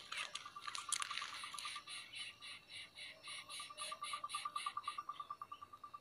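Greater coucal nestlings begging with rapid raspy calls, about four to five a second, while the adult bends over them at the nest. The calls follow a brief rustle of dry leaves and grass in the first second or so.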